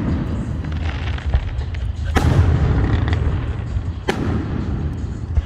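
Aerial fireworks display: two sharp shell bursts, about two seconds in and again about two seconds later, over a steady low rumble.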